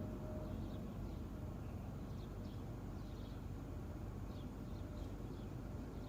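Small birds chirping in short, repeated calls over a steady low rumble; a faint hum fades out about half a second in.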